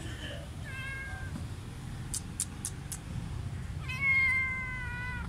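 A cat meowing twice: a short, high mew about a second in, and a longer, slightly falling mew near the end, which is the loudest sound. Four faint high ticks come in between.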